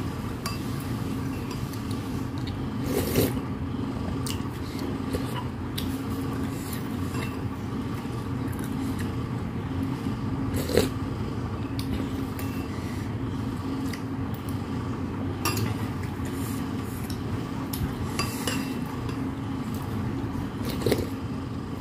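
Metal spoon clinking and scraping against a ceramic soup bowl as broth is spooned up, a few scattered clinks over a steady low hum.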